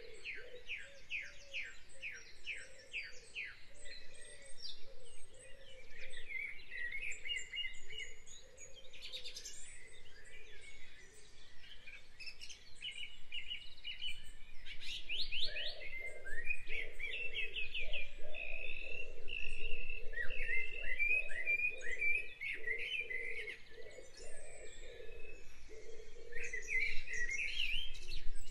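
Background birdsong: several small birds chirping and trilling over one another in quick repeated notes, with a lower repeated call underneath.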